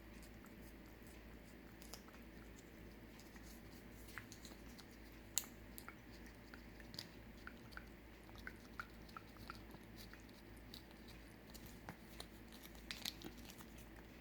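Cat licking and eating a Ciao Churu lickable paste treat: faint, wet mouth clicks and smacks, scattered irregularly, with a few louder ones.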